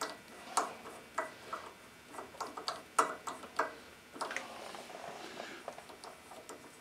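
Socket wrench clicking and clinking in irregular, fairly quiet ticks while loose head bolts are turned out of a single-cylinder flathead engine's cylinder head. The bolts were only finger tight, which the mechanic takes as the reason the head gasket leaks.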